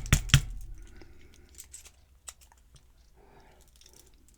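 Handling noise from a disassembled padlock and small tools: a quick run of sharp clicks and knocks at the start, then faint scattered ticks and rustling.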